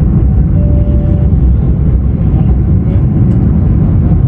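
Jet airliner cabin noise in flight: a loud, steady low rumble of engines and airflow, with a faint short tone about a second in.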